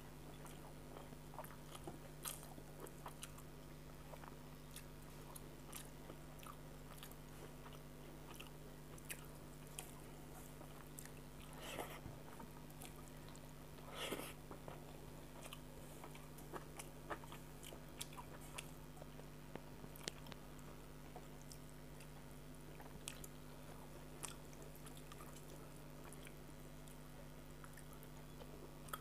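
Faint, close-miked chewing and biting of rice mixed with fish curry, eaten by hand, with many small mouth clicks and a couple of louder chews about halfway through. A low steady hum sits underneath.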